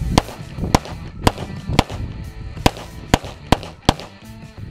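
Eight pistol shots fired in quick succession, about half a second apart with a short pause after the fourth, over background music.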